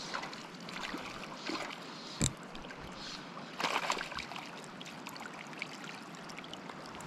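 River water flowing with a steady wash, with a sharp knock about two seconds in and a brief louder burst of noise just before four seconds in.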